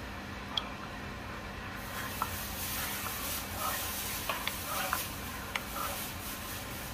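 Wooden spatula stirring thick, creamy butter chicken sauce in a metal pot, with soft wet swishing and a few light clicks of the spatula against the pan, over a steady low hum.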